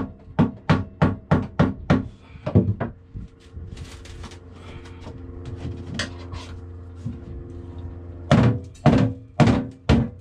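Rubber mallet knocking on the old galley countertop to tap it loose from the cabinetry, in quick blows about three a second. The blows stop for about five seconds and start again near the end.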